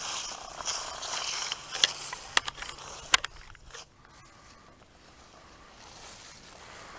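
Footsteps rustling through dry leaves and grass, with three sharp clicks among them, stopping a little over halfway through.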